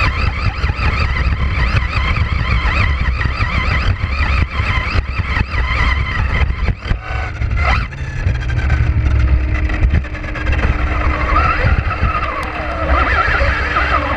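Vaterra Glamis Uno RC car driving fast, heard from a camera mounted on the car: the electric motor and drivetrain whine, rising and falling in pitch with the throttle and climbing sharply about two-thirds of the way through, over a heavy rumble of wind and chassis vibration.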